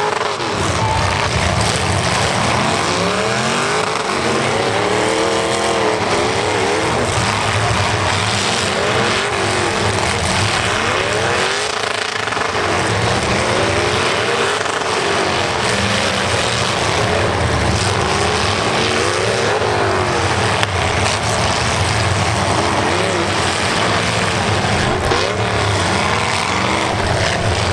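Several demolition derby cars' engines revving up and down over and over at once, their pitch rising and falling as the cars push and ram each other.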